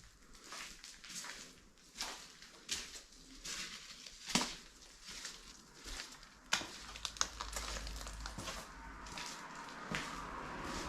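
Footsteps crunching over debris on the floor, an uneven run of crackly steps. A low steady rumble comes in during the second half.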